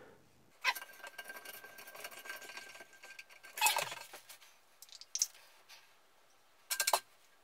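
Light clinks, rattles and rustles of small plastic toilet-tank parts being handled and fitted, with a few short sharper clatters near the middle and end.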